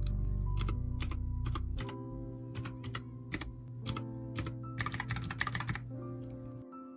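Royal Kludge RK61 mechanical keyboard being typed on: single clicky keystrokes about every half second, then a quick run of keystrokes around five seconds in, over soft background music.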